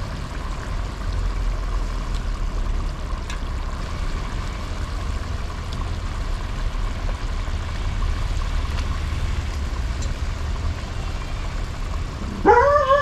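Steady low rumble of a portable gas stove burner under a pot of boiling gravy while raw rabbit meat is added. Near the end a loud animal call with a wavering pitch breaks in.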